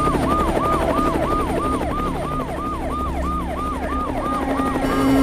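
Emergency-vehicle siren in a fast yelp, its pitch jumping up and sliding down about three times a second, over a low rumble. Near the end a steady droning tone swells in underneath.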